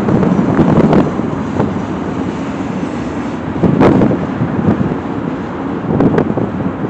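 Tank cars of a slow freight train rolling across a steel girder bridge overhead: a steady heavy rumble broken by a few sharp clanks.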